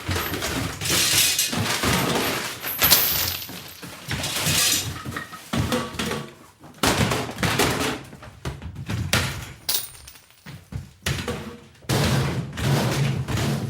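Sound effect of a room being searched: irregular, repeated clatters, knocks and crashes of objects being rummaged through and tossed about.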